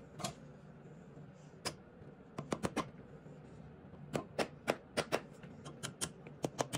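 A flathead screwdriver clicking and tapping against the metal valve cover of a 110cc engine's cylinder head as it is pried at. The cover is stuck after a long time in place. The sharp, irregular clicks come in small clusters and come quicker near the end.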